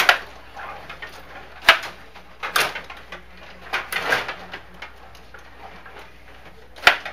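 Stiga table hockey game in play: sharp plastic clacks and knocks from the rods, players and puck, several in a few seconds, the loudest just under two seconds in and again near the end.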